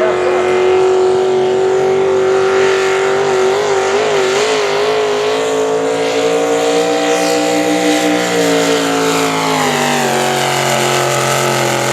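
International 656 tractor, a modified hot-rod pulling tractor, running flat out while pulling the sled; the engine note holds high and steady, wavers briefly about four seconds in, then drops in pitch in two steps near the end.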